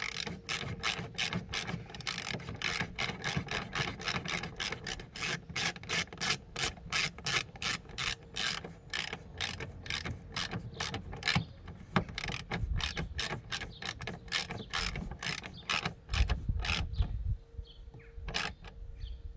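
Hand socket ratchet clicking fast and evenly, about three to four clicks a second, as it winds a self-tapping screw up into a car's side skirt. The clicking stops near the end, leaving a few scattered clicks.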